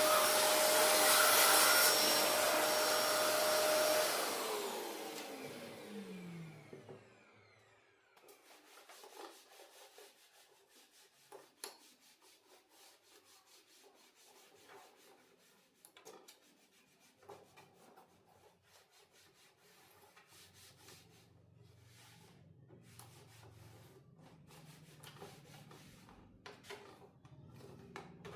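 Vacuum cleaner running with a steady whine, switched off about four seconds in, its motor winding down with a falling whine. After that come faint scattered clicks and light handling noises.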